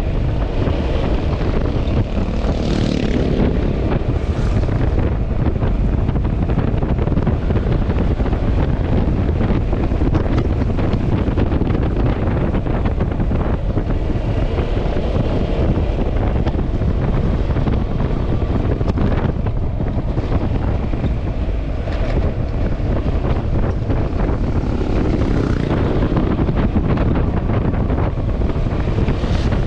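Wind buffeting the microphone over the steady engine and road noise of a Yamaha XMAX scooter being ridden at speed, with a few brief rises in hissing whoosh along the way.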